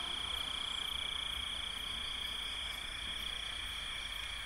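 Night-time chorus of crickets: a steady, continuous high-pitched trill, with a fainter second trill a little lower.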